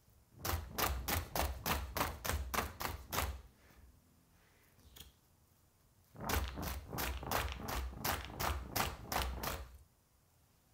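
Baking tray of freshly piped macaron shells being rapped in two quick runs of knocks, about four a second, each knock with a low thud; this is the tapping that knocks air bubbles out of the piped batter.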